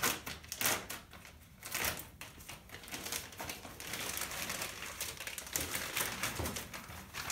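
A sterile catheter pack's wrapping crinkling and rustling as it is opened by hand, with a few sharp crackles early, then a longer stretch of continuous rustling from about three seconds in.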